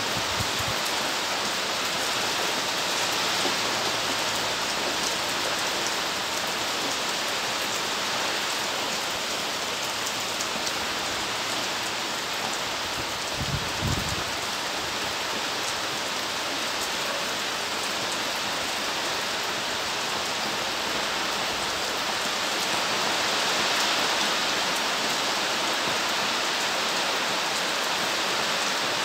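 Steady rain falling, an even hiss of many drops with no letting up, and a brief low thump about halfway through.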